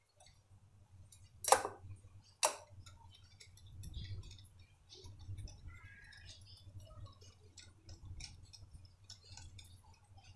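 Wire whisk beating thin pude batter in a glass bowl: soft squelching with many light clicks of the wires against the glass. Two sharper knocks come about a second and a half in, a second apart.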